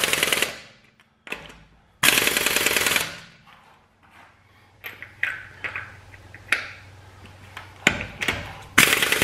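Air impact wrench hammering lug nuts tight through a 100 ft-lb torque stick, in three rattling bursts of about a second each: at the start, about two seconds in, and near the end. Scattered metal clicks between the bursts as the socket is moved from nut to nut.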